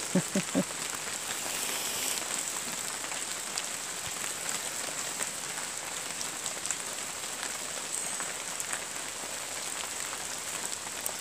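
Steady rain falling on wet leaves and ground, with scattered ticks of single drops. Three brief low sounds come right at the start.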